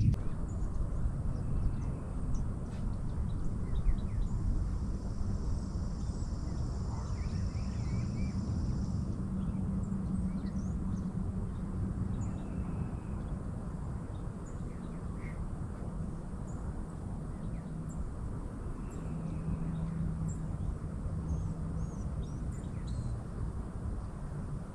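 Outdoor ambience: a steady low rumble with scattered short bird chirps throughout and a faint high whine for a few seconds near the start.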